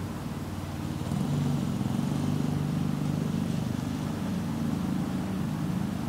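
Steady low rumble of motor vehicle engines, with no clear bird calls standing out.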